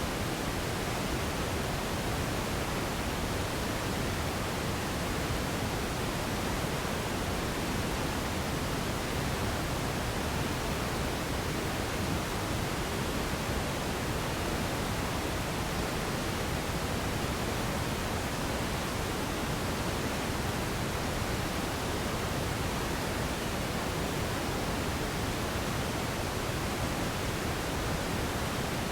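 Radio static: a steady, even hiss with no tones or breaks, weighted toward the low end.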